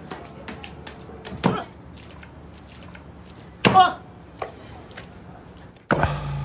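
Wooden pestles pounding soft dough in a mortar: a series of irregular thuds and knocks, with louder strikes about a second and a half in and near the four-second mark. Near the end a steady buzz starts abruptly from a massage gun.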